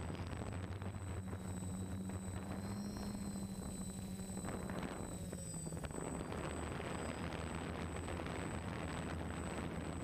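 Steady low hum of a small aircraft's motor and propellers, heard from the camera on board, mixed with rushing wind. One hum note eases slightly lower about five seconds in, and the wind grows louder in the second half.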